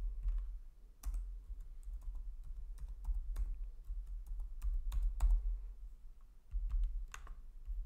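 Computer keyboard being typed on: irregular single key clicks, a few a second with short pauses between them.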